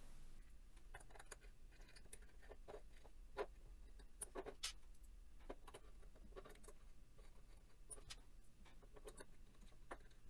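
Faint, scattered small clicks and taps of hands handling a 3D-printed plastic part and working its small screws with an Allen key, with a few sharper clicks about a third of the way in.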